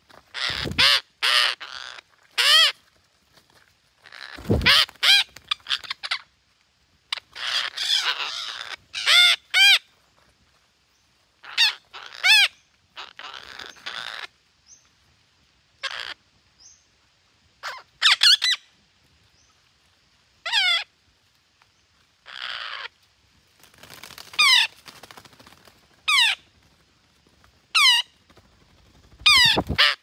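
Several red-breasted parakeets calling: many short, loud calls, each dropping in pitch, coming in irregular bunches with gaps of a second or two. A low thump sounds about four and a half seconds in.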